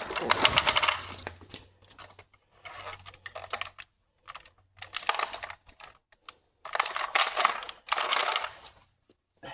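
Toy BMW X5 being crushed under a bare foot, its body cracking and crackling in about four bursts of rapid small clicks with short pauses between them.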